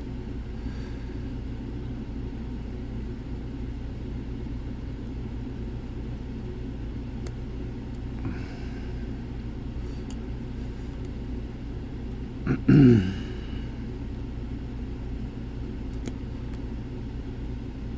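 Faint scattered clicks of lock picks working a Lockwood twin padlock over a steady low rumble. About two-thirds of the way through comes a short, loud throat-like vocal sound that falls in pitch.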